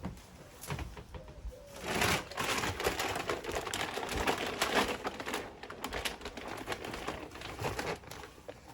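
Dry peanuts rattling and clattering as they are poured into a bird feeder: a dense, irregular patter of small hard clicks starting about two seconds in and stopping near the end.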